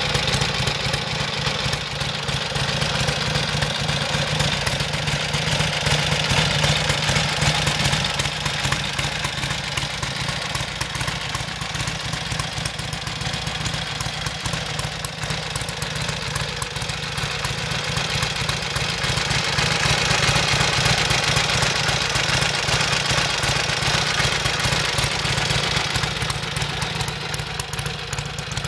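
The 1977 Harley-Davidson XLCR 1000's air-cooled Ironhead V-twin engine idling steadily with a fast, even beat.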